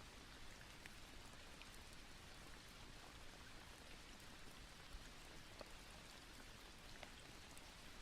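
Near silence: a faint, steady hiss with scattered soft ticks.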